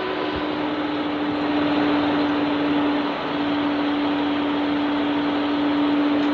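A camper van's engine running as the van creeps forward up onto plastic leveling blocks under its front wheel, with a steady hum that breaks briefly about three seconds in.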